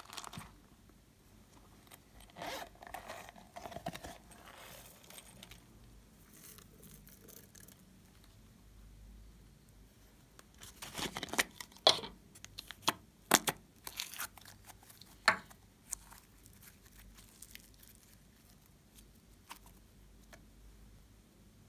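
Slime and slime add-ins being handled by hand: crinkly, crunchy rustling with a cluster of sharp clicks and crackles partway through.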